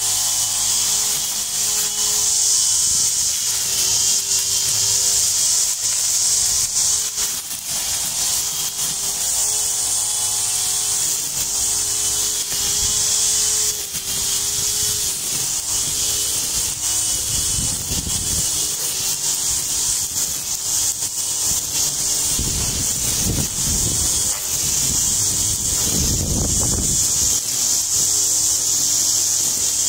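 Homemade motor-driven grass cutter running steadily with a high whir, its pitch wavering slightly under load. A few rougher surges come in the second half as it cuts through grass.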